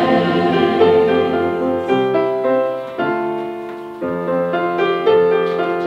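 Piano accompaniment playing a short instrumental passage between the choir's sung lines, striking a new note or chord about every second, each fading away.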